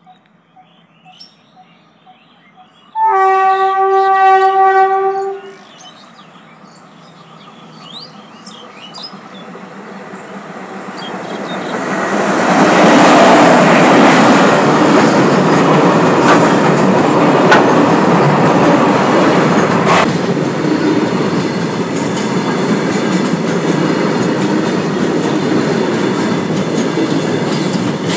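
WAG-5 electric locomotive sounds its horn once for about two and a half seconds a few seconds in, then grows louder as it approaches and passes close by. It is followed by the steady rumble and clickety-clack of loaded flat wagons rolling over the rails.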